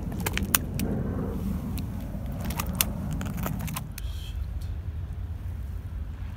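A motor vehicle running nearby, its low rumble easing off after about four seconds, with a string of light clicks and taps over the first few seconds.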